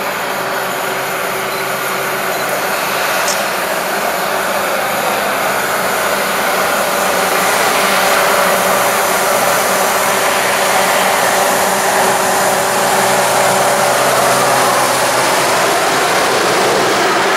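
M62 diesel locomotive's two-stroke V12 engine running steadily under load as it hauls a freight train, growing louder as it draws near and passes close.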